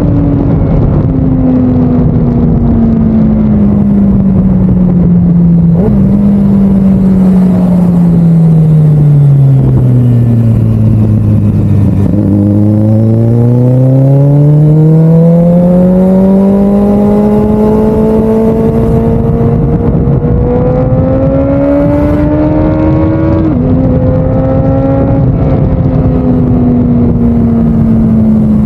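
The camera vehicle's motor runs with a clear pitched tone over heavy wind and road noise. The pitch falls steadily as it slows for about the first 12 seconds, then rises again as it speeds back up.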